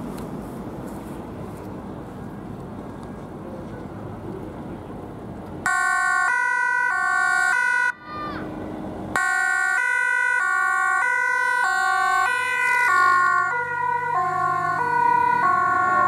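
Dutch ambulance two-tone siren. About six seconds in, rapid alternating high and low tones start. Near eight seconds they break off with a short falling glide, then resume about a second later and drop in pitch as the ambulance passes and drives away.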